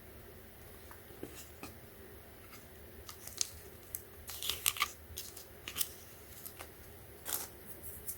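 Packaging being handled: scattered sharp clicks and crinkles, more frequent from about three seconds in.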